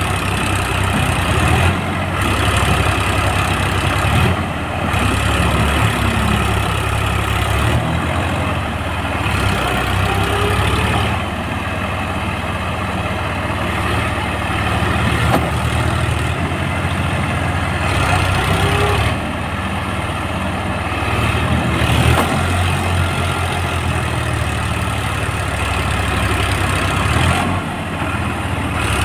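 Eicher tractor's diesel engine running under load while towing a bogged-down tractor. Its level drops and picks up again several times.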